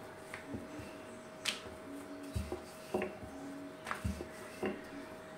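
Wooden rolling pin rolling out paratha dough on a board, with light knocks and soft thuds about once a second.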